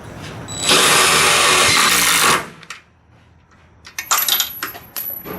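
Power drill boring through a doubled layer of bus sheet-metal panel, a loud grinding that runs for about a second and a half and stops suddenly. About four seconds in, a quick run of metallic clicks and rattles follows, with a faint high whine.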